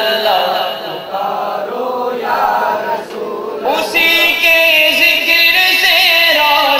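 Male naat reciter singing an Urdu devotional verse into a microphone through a PA system, the voice rising to a strong, held line from about four seconds in.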